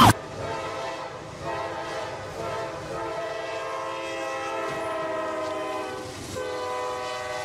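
Freight locomotive air horn sounding one long blast. It breaks off briefly about six seconds in, as the train strikes a stretch limousine on the crossing, then sounds again.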